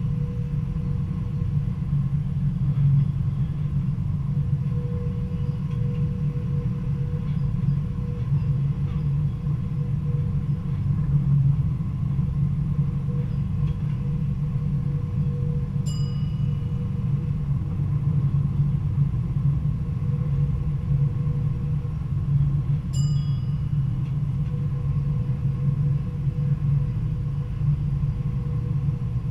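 Stadler GTW diesel multiple unit running along the track, heard from the cab: a steady low rumble with a faint steady hum. A short high-pitched beep sounds twice in the second half.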